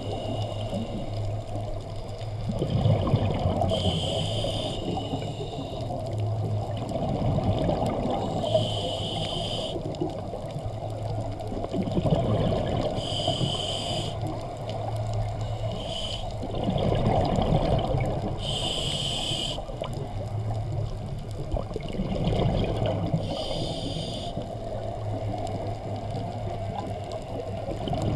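Scuba diver breathing through a regulator, heard underwater: a short hiss about every four to five seconds alternating with a low, churning rumble of exhaled bubbles.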